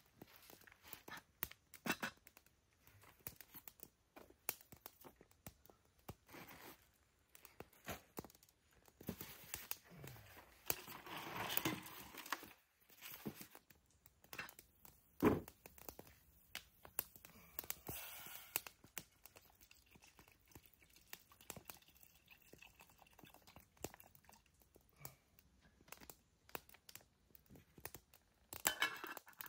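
Rustling and crinkling of plastic packaging and small clicks and knocks of camp cookware being handled over a backpacking stove, with one sharp knock about fifteen seconds in.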